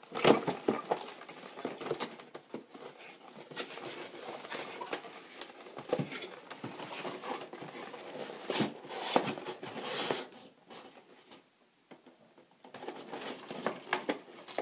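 Cardboard display box being handled and opened by hand: irregular scraping, tapping and rustling of the box flaps and cardboard packaging, with a quiet gap of about two seconds past the middle.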